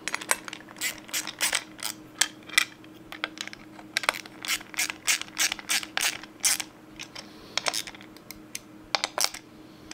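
Ratchet wrench clicking in quick runs of strokes as a nut is tightened on a chainsaw's bumper spike, with short pauses between the runs.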